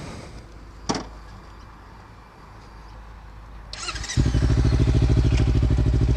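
A sharp click about a second in, then a Kawasaki Ninja 300's parallel-twin engine is cranked by its starter and catches about four seconds in, running loud and steady through the Screaming Demon slip-on exhaust with its baffle out.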